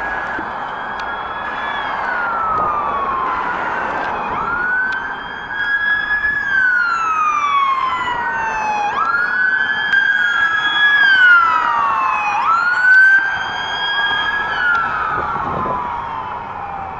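Police car siren in wail mode. Its pitch rises quickly, holds, then falls slowly, and each cycle lasts about four seconds.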